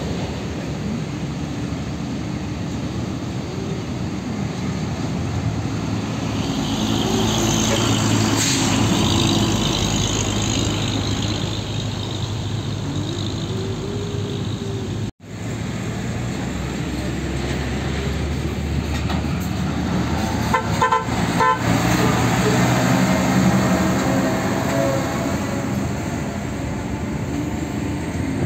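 Diesel truck engines running as heavy trucks pull through roadside traffic, with a brief dropout about halfway through. A vehicle horn toots a few short times roughly three-quarters of the way in.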